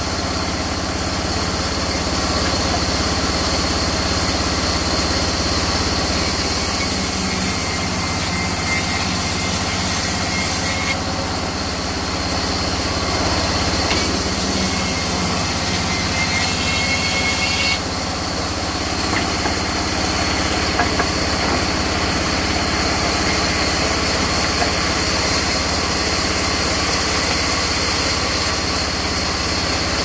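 Belt-driven sawmill band saw running steadily as its blade rips lengthwise through a long mahogany log. The hiss of the cut shifts in tone a few times along the way.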